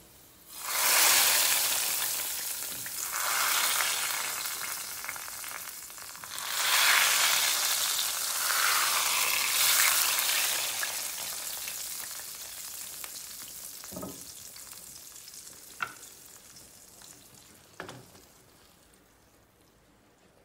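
Baghar (tempering): hot oil with fried chopped garlic poured from a small pan into a pot of sour mango-and-tamarind tok, sizzling. The sizzle bursts up about a second in and fades, surges again about six seconds in, and dies away slowly, with a few light knocks of utensils near the end.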